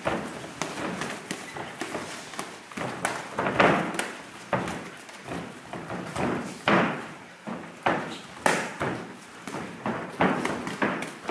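Gloved punches and kicks landing in a kickboxing bout, with feet stamping on the ring canvas: irregular thuds, a few of them much louder than the rest.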